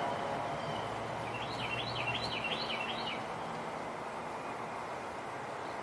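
Steady wind noise outdoors, with a bird singing a quick run of about six up-and-down notes from about one to three seconds in.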